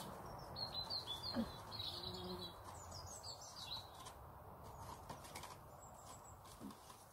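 A small bird chirping in a quick, high twittering run from about half a second to about four seconds in, faint over a quiet outdoor background.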